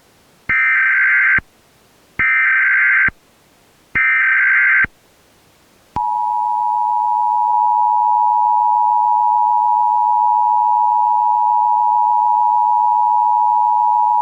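Emergency Alert System header: three short bursts of warbling digital data tones (the SAME header), each about a second long, followed by the EAS two-tone attention signal, a steady, loud dual tone held for about eight seconds that cuts off suddenly.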